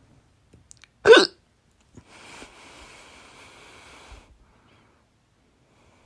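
A woman's single loud hiccup, mouth open, with a short voiced yelp about a second in. It is followed by a quieter, steady hiss lasting about two seconds.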